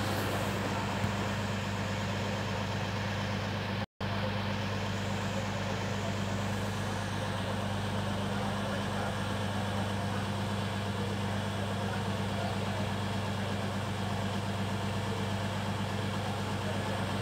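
Minangkabau Express diesel multiple unit idling, its diesel engines giving a steady low hum. The sound cuts out for an instant about four seconds in.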